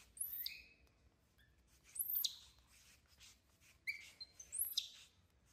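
Baby macaque crying: a few short, high-pitched, sliding cries about every two seconds, the distress call of a baby monkey calling for its mother.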